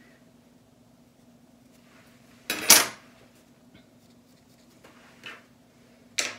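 A metal ruler set down with a short clatter about two and a half seconds in, followed by lighter handling taps and a sharp click near the end.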